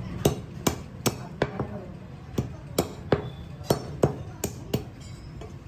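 A heavy chopping knife striking through goat legs on a chopping block: about eleven sharp chops at roughly two or three a second, each with a slight metallic clink, with a short pause about a second and a half in.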